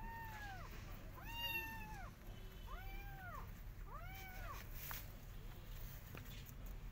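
Cat meowing four times, about a second and a half apart, each meow rising and then falling in pitch.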